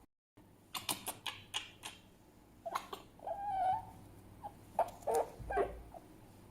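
Fennec fox calling: a quick run of five or six sharp chirps, then a short squeaky whine about three seconds in, and a few more short yips near the end.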